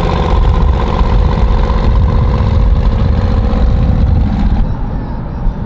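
Twin-turbo Chevrolet Silverado pickup, hood removed, driving at highway speed with its engine running loud and steady. About four and a half seconds in, the sound gets a little quieter and duller.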